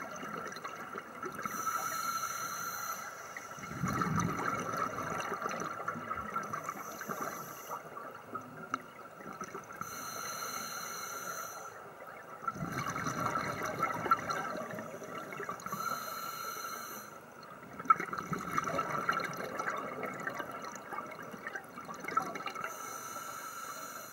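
Scuba diver breathing underwater through a regulator: a short hiss of inhalation through the demand valve, then a longer rush of exhaled bubbles, repeating every six to seven seconds. A steady faint whine runs underneath.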